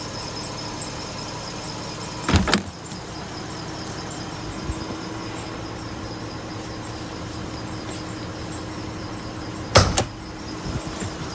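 Toyota Zero Crown (S180) V6 engine running at idle, with a fast, regular high-pitched ticking and squeal from the belt-driven accessories in the engine bay. This is the abnormal noise being chased, with the water pump, alternator, idler pulley and V-belt as suspects. Two loud knocks come about two seconds in and near the end.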